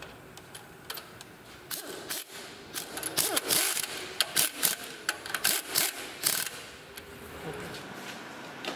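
Pneumatic screwdriver tightening bolts on a motorcycle's handlebar mounting: air hiss and a quick series of sharp clicks that come in bursts from about two seconds in to past the six-second mark, then stop.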